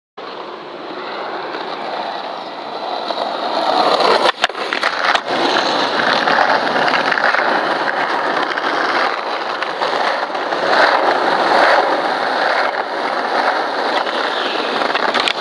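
Skateboard wheels rolling on asphalt, a steady rushing rumble that builds over the first few seconds as the board picks up speed, with a short sharp clack about four seconds in.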